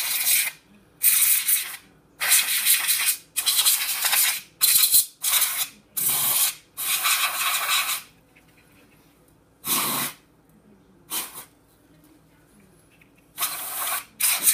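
Compressed-air duster spraying in about ten short hissing blasts, each under a second or so, with brief pauses between them, blowing built-up dust out of the open housing of an Ecotech Radion LED light.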